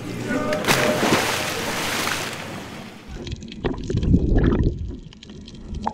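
Loud rushing and splashing water. From about three seconds in, it turns to dull bubbling and sloshing, as heard with the microphone at or under the water's surface.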